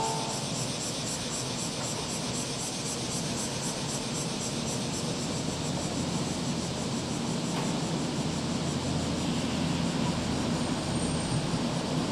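Osaka Prefectural Urban Development 3000 series electric train pulling into the platform, its running noise and low hum growing steadily louder as it draws close and slows to a stop.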